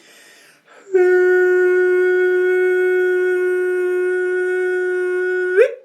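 After a short intake of breath, one long held note sounds steady in pitch for about four and a half seconds, then bends up briefly and cuts off: a sound-healing tone.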